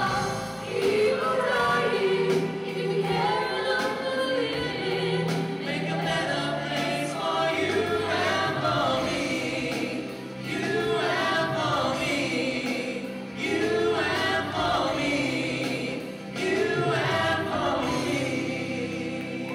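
A chorus of voices singing together over pop music, in long sung phrases with short breaks between them.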